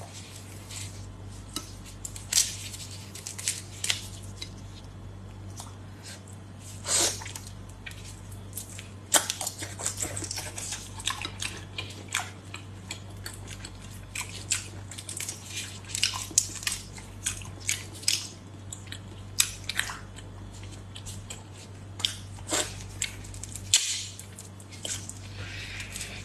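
Raw soy-marinated shrimp being peeled by hands in plastic gloves: irregular crackling and snapping of the shells with wet squelches, and biting and chewing near the end. A steady low hum runs underneath.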